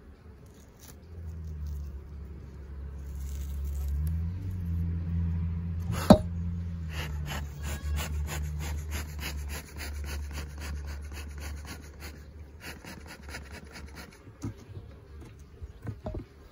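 Honeybees humming over an open hive's top bars. A sharp click comes about six seconds in, followed by several seconds of rapid scratchy strokes.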